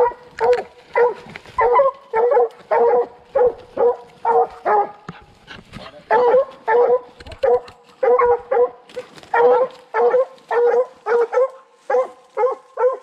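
Young redbone coonhound barking at a tree, a fast, steady run of about two barks a second. It is the bark of a hound treeing a raccoon.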